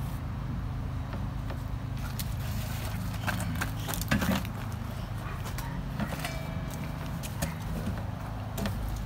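Scattered light knocks and clicks of boards, bricks and tools being handled, with a louder knock about four seconds in, over a steady low hum. The circular saw is not cutting.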